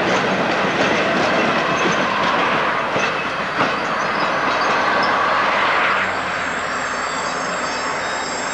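A loaded coal train passing, its wagon wheels clattering steadily over the rail joints. There is a single knock about three and a half seconds in, and the sound eases a little after about six seconds.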